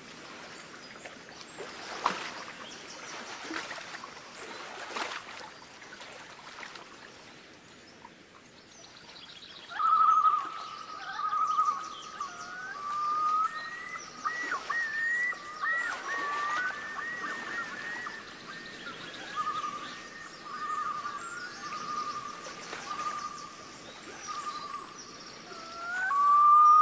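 Bird calling over outdoor ambience: a first stretch of rustling, watery background with a few clicks, then from about ten seconds in a long, clear whistled call held near one pitch with quick warbling leaps above it, repeated several times.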